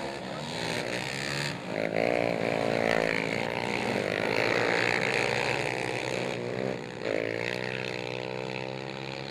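Racing quad ATV engines running at full throttle, their pitch climbing and dropping back several times as the quads accelerate and pass, loudest in the middle.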